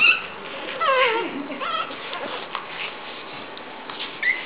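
Young pug puppies squealing and whining: a few short high cries, the longest about a second in wavering and falling steeply in pitch, another just after it and a brief squeak near the end.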